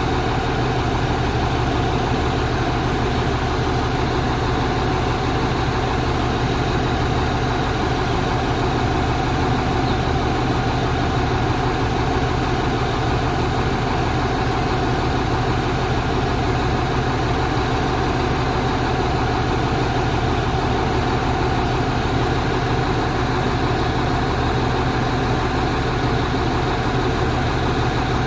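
Four-axle truck's engine running steadily, a continuous low hum with no change in pitch or loudness.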